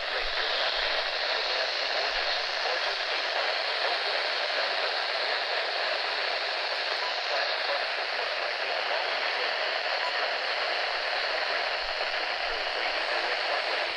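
Steady hiss of radio static from a weather-radio receiver, with no voice or tones coming through.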